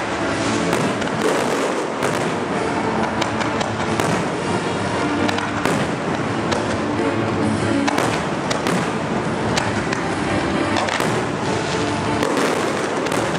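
Fireworks display: aerial shells bursting one after another with bangs and crackling, over music playing steadily.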